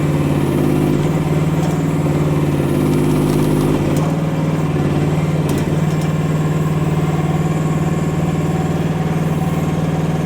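Chinese micro excavator's small engine running at a steady speed, fuller-sounding in the first few seconds, with a couple of faint knocks about four and five and a half seconds in.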